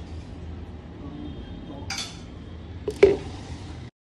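Kitchen clatter of glass tumblers on a countertop over a low steady hum. There is a short scrape about two seconds in, then a sharp clink-knock of a glass just after three seconds. The sound cuts off abruptly near the end.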